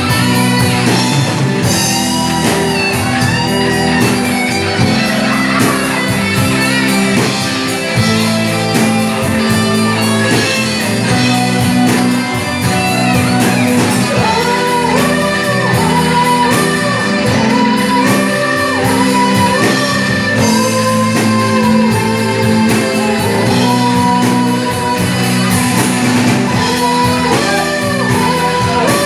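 Live rock music from a band: electric guitars over a steady beat, with a voice singing a melody from about halfway through.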